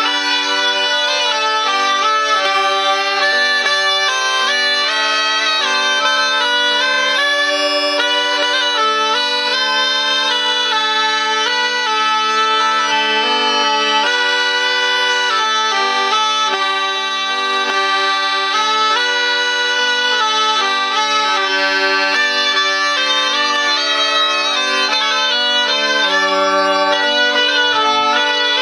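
Zampogna (southern Italian bagpipe) and ciaramella (folk shawm) playing a traditional Christmas tune together: a steady drone held under a moving reedy melody, without a break.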